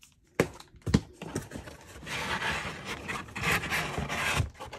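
Two sharp knocks, then a rough scraping rub lasting about two and a half seconds as a molded paper-pulp packaging insert is pulled out of a snug cardboard box.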